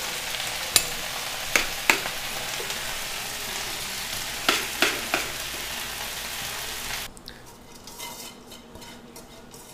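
Food frying in a pan, a steady sizzle, with several sharp clinks of metal cookware and utensils. The sizzle cuts off suddenly about seven seconds in, leaving only faint clatter.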